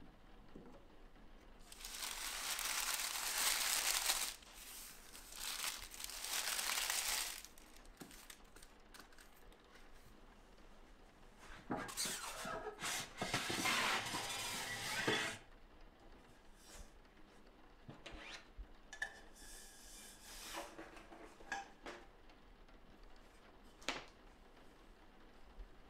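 Workshop handling noises: several seconds of paper rustling as freshly cut strips of transfer paper are handled, then a screen-printing screen rubbing and scraping as it is slid out of a storage rack, followed by scattered light clicks and knocks.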